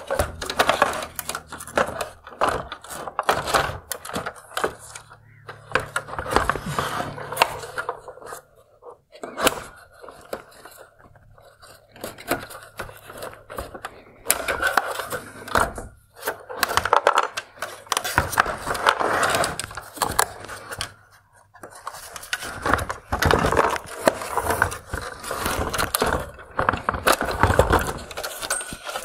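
Hard plastic parts of a Mercedes-Benz S-Class LED headlight scraping, clicking and knocking as the projector unit is worked free of its clips and pulled out of the housing. The noises come irregularly, with a quieter stretch about a third of the way in.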